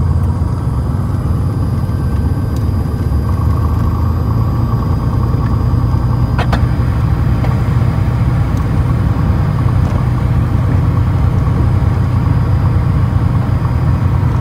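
SOCATA TB20's six-cylinder Lycoming engine and propeller running at low power, heard inside the cabin as a steady low drone while the aircraft rolls out after touchdown. About three and a half seconds in the drone shifts slightly higher, and a brief click comes about six and a half seconds in.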